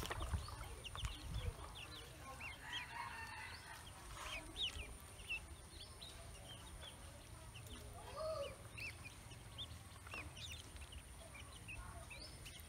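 Ducklings peeping: many short, high cheeps scattered throughout, with one lower, bending call about eight seconds in.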